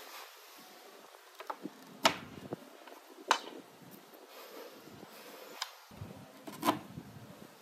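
Notched wooden slats knocking and clattering against each other and the workbench as they are handled and laid down: three louder wooden clacks, about two seconds in, just over three seconds in and near the end, with lighter taps between.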